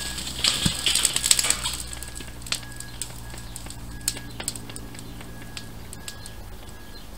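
Thermite burning out in the core of a sand volcano: a loud fizzing hiss full of sharp crackles and pops through the first two seconds, then dying to scattered crackles and pops as the burn ends.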